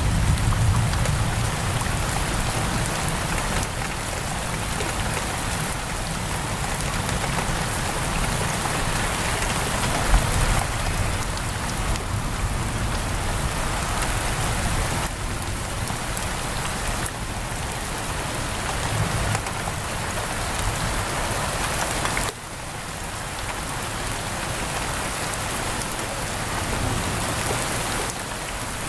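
Steady, heavy rain pouring on a window.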